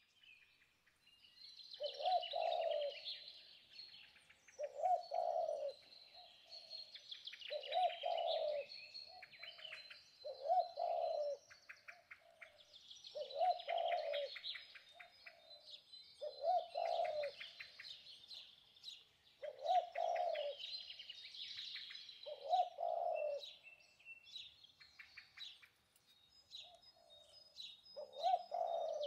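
Birdsong: a low cooing call repeats in short phrases about every three seconds, over continuous high chirping and twittering from other birds.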